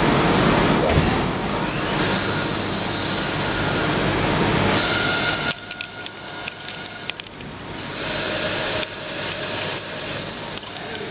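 CNC lathe turning a stainless steel bar: the spindle runs with a dense machine noise and a rising high whine in the first couple of seconds. About five and a half seconds in the noise drops and the tool cuts the spinning bar, with crackling chips and a steady high-pitched squeal.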